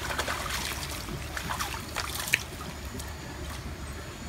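Water splashing and trickling as hands wash small freshly caught climbing perch (ikan betok) in a plastic basin of ditch water, with a sharp click about two and a half seconds in.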